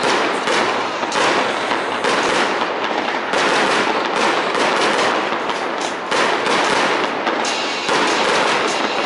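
Aerial fireworks going off in quick succession: a continuous dense crackle of small reports, with a fresh louder burst every second or two.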